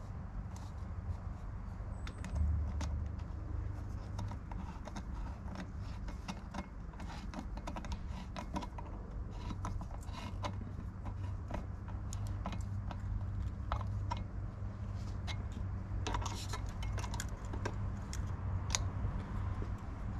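Light metallic clicks and clinks of hand tools being worked in a car's engine bay, irregular and scattered, thicker near the end, over a steady low hum.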